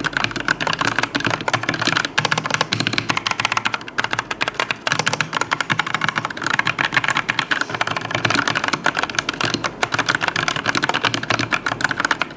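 Fast, continuous typing on a Fantech Atom Pro mechanical keyboard with linear red switches: rapid keystroke clacks with no tactile click.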